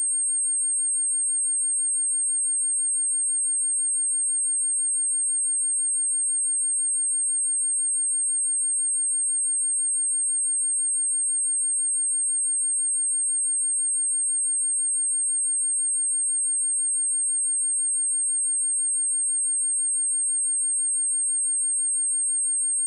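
A steady, high-pitched 8547 Hz sine-wave test tone, one pure unchanging pitch, played for speaker testing and cleaning.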